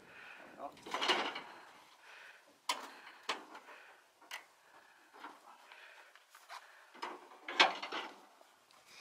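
Metal catches and fittings on the rear door and ramp of a livestock trailer being worked loose: scattered clanks, knocks and rattles, loudest about a second in and again near the end.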